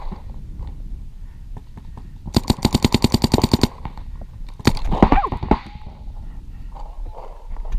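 Paintball marker firing a rapid burst of about eighteen shots in just over a second, then a single loud crack about a second later, followed by a short voice.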